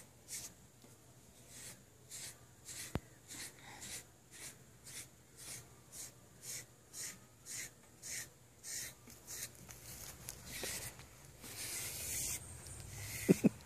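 SleekEZ deshedding blade being drawn through a dog's coat: short, even brushing strokes, about two a second, with a single click a few seconds in.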